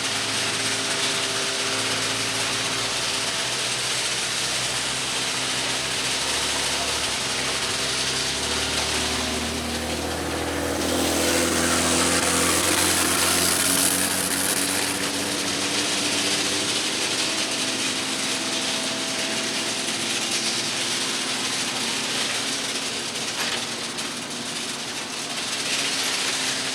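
Diesel engine of railway track-maintenance machinery running steadily. Near the middle it swells louder, with a deeper hum and a hiss for a few seconds.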